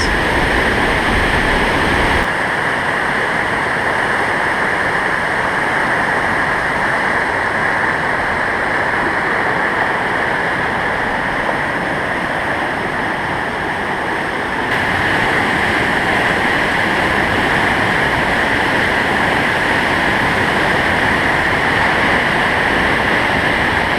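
A large waterfall rushing: a steady, loud noise of falling water. The deep rumble drops away abruptly about two seconds in, and the sound gets a little louder again just past halfway.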